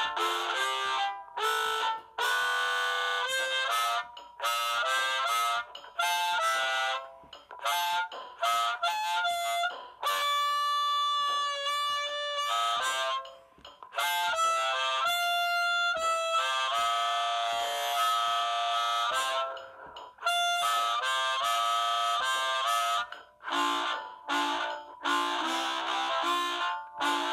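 Easttop Forerunner valveless chromatic harmonica played amplified through a cupped bullet-style harmonica mic (a Red 57 Screamin Honker) and a small Smokey amp, blowing blues phrases of held notes and chords with brief pauses between them.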